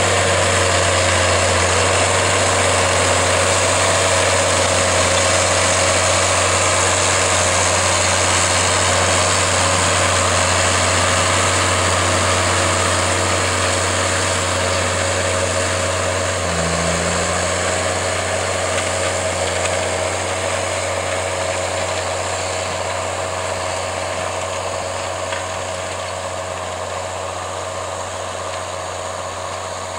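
John Deere 7810 tractor's six-cylinder diesel engine running steadily under ploughing load, getting gradually quieter.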